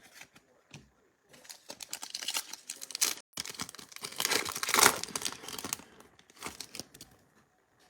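Plastic wrapper of a trading card pack being torn open and crinkled, in irregular crackling bursts with a short pause about a third of the way in.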